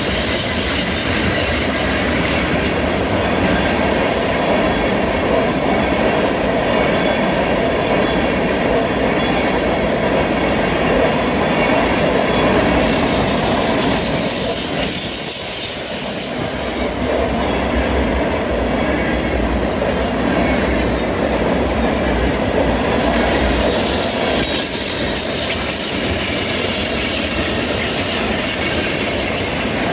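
Freight train of tank cars and covered hoppers rolling steadily past through a curve. A continuous rumble of steel wheels on rail runs with a thin high squeal from the wheels in the curve.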